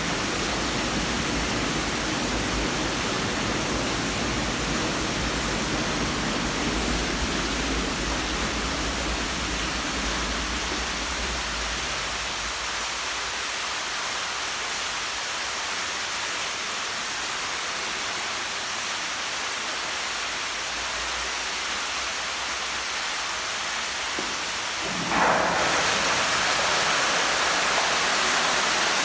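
Steady rush of splashing water from a swimming pool's water features (jets, geyser or waterfall). About 25 seconds in it suddenly becomes louder.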